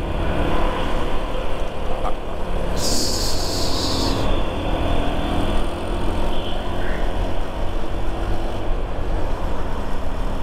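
Motorcycle under way, heard from the rider's seat: a steady engine and road rumble with no let-up. About three seconds in there is a burst of hiss lasting a second or so.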